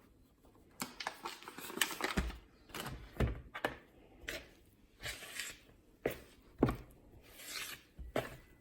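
Spoon stirring flour into a mashed sweet potato dough, giving irregular knocks and scrapes with a few heavier thumps.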